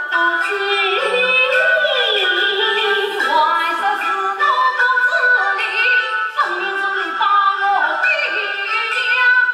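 Yue opera singing: a woman's voice sings a wavering, gliding melodic line in phrases, over traditional Chinese instrumental accompaniment.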